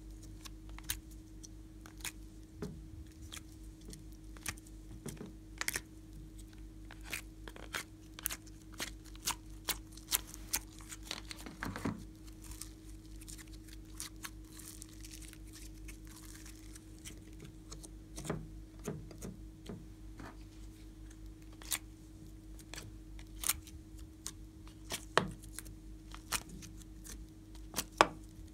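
Soft clay and slime being handled and pressed into a glass baking dish: scattered, irregular sticky clicks, crackles and taps, with a steady faint hum underneath.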